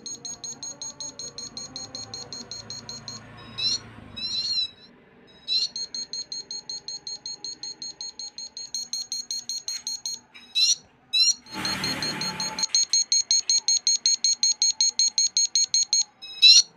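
Homemade transistor siren circuit sounding: a rapid, even train of high-pitched beeps, several a second, broken a few times by short warbling chirps. There is a brief rush of noise about twelve seconds in.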